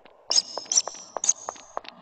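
Cartoon soundtrack sound effects: a fast, even run of light ticks, about five a second, with three short high squeaks in the first half.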